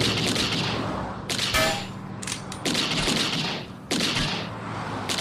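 Gunfire sound effects: several volleys of rapid shots, one after another, over a low steady hum.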